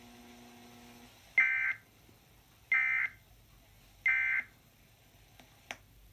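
Emergency Alert System end-of-message signal: three short bursts of SAME data tones about a second apart, the 'NNNN' code that closes the severe thunderstorm warning broadcast. A low hum stops about a second in.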